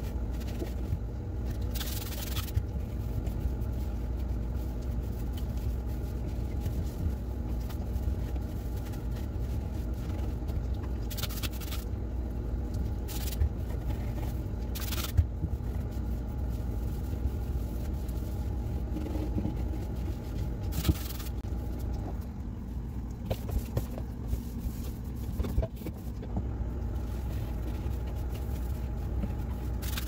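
A cloth rag wiping and scrubbing the plastic inside of a refrigerator, with a few short scrapes of the cloth, over a steady low hum.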